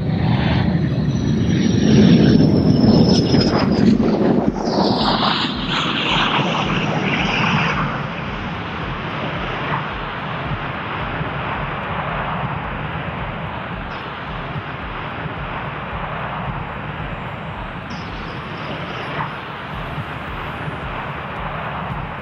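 Jet aircraft flying low past, the BAC TSR-2 prototype with its chase jets, their engine whines sweeping down in pitch over the first several seconds. This is followed by a steadier jet-engine rush as the TSR-2 lands and rolls out.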